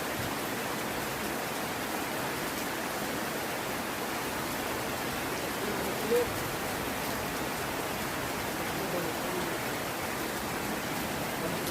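Heavy rain falling steadily, an even hiss, with faint voices murmuring underneath and one short louder sound about halfway through.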